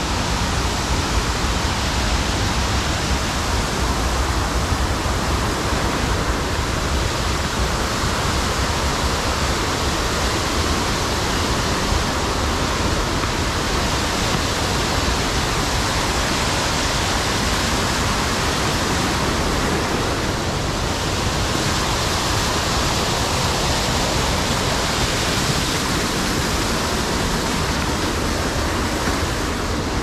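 Water pouring over a tiered stone waterfall wall into a pool below: a steady, unbroken rush of falling water.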